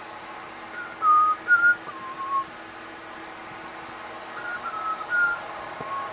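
A person whistling a short tune in two phrases of a few notes each, the first about a second in and the second near the end, over a steady hiss and faint hum.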